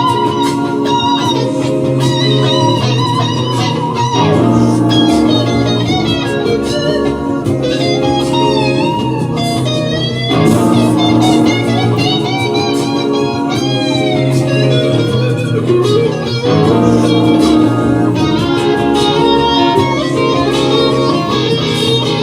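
Instrumental music led by guitar over a steady backing, with lead notes that bend and glide in pitch.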